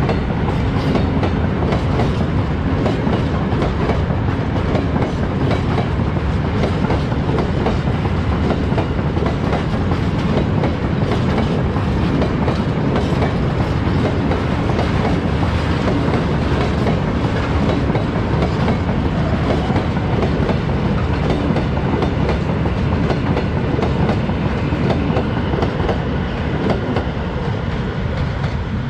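Freight train of Fas hopper wagons rolling past at close range, a steady heavy rumble with the wheels clattering over the rail joints. It eases off slightly near the end as the last wagons pass.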